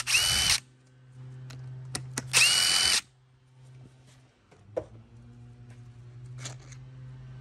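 Cordless driver with a T27 Torx bit backing out the carburetor mounting screws of a string trimmer. It runs in two short bursts, each about half a second, its motor whine rising and then holding. After that come a few light clicks as the loosened parts are handled.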